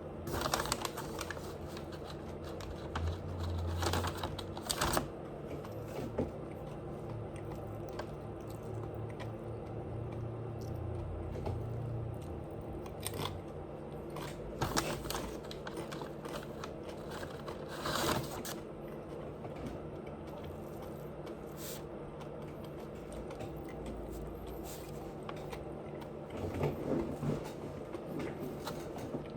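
Close-up eating sounds: scattered crunches and chewing noises every few seconds over a steady low hum.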